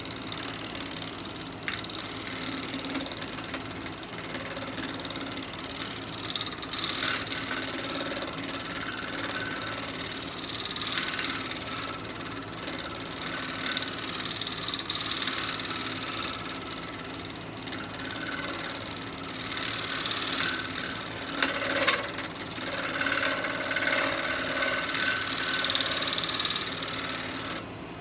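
Gouge cutting a spinning pear bowl on a wood lathe: a steady hiss of shavings being cut, swelling louder over several passes, above the lathe motor's hum. The cutting stops abruptly near the end while the motor keeps humming.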